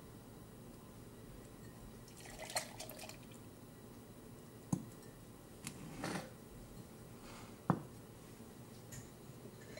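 Glass coffee server of freshly brewed pour-over coffee being handled: a few short knocks of glass set against the counter, about halfway and again near three-quarters of the way through, with brief liquid splashes and drips in between, over a faint room hiss.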